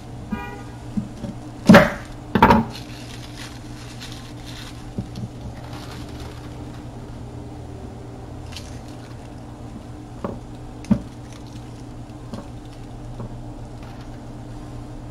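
Kitchen prep knocks on a wooden cutting board: two sharp knocks close together about two seconds in, then a few lighter clicks. A steady low hum runs underneath.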